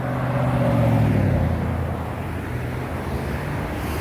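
A motor vehicle passing by: its engine hum is loudest about a second in and drops in pitch as it goes away, over steady traffic noise.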